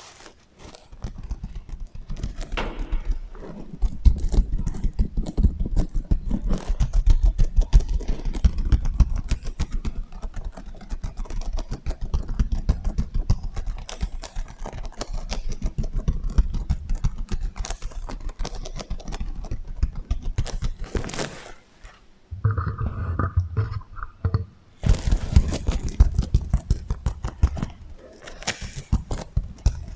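Fingers scratching and brushing across the sequins of a sequin heart pillow, a dense run of small scratchy clicks with an echo effect. The sound breaks off briefly twice, about two-thirds of the way through.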